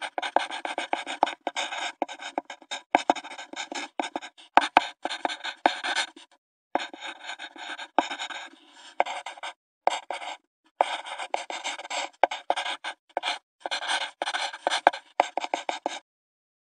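Intro sound effect of crackly, glitchy noise full of sharp clicks, cutting out in short gaps now and then and stopping abruptly near the end.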